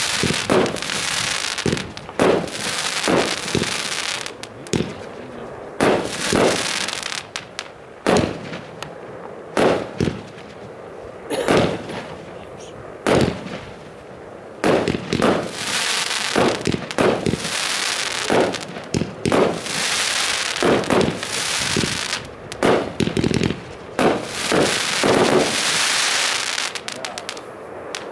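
A Hestia YH2132 25-shot, 26 mm consumer fireworks battery firing shot after shot, about every one to two seconds. Each shot is a sharp bang followed by a crackling hiss as the stars break.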